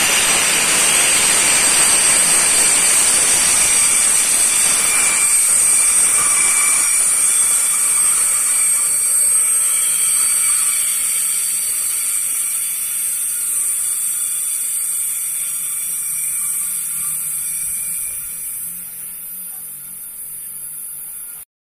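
Freight train rolling past: a steady hiss with a thin high-pitched squeal, fading slowly as the train moves away, then cutting off suddenly near the end.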